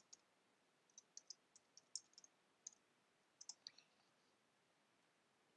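Faint, quick keystrokes on a computer keyboard, about fifteen light clicks in uneven runs as a password is typed, stopping about four seconds in.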